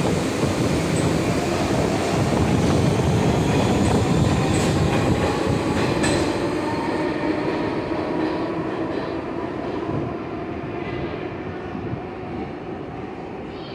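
New York City subway train running through a station, with heavy wheel-on-rail rumble, faint wheel squeal and a few sharp clacks about halfway through. The noise dies down over the last several seconds.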